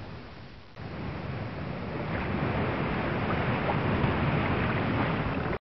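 Steady wind rushing over the microphone with water noise beneath, heaviest in the low end; it dips briefly, comes back up a little under a second in, then cuts off abruptly near the end.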